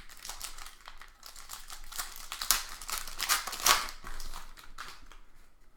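Trading cards being handled: a quick run of papery slides, rustles and light clicks as cards are flipped and shuffled against each other, busiest in the middle and dying away near the end.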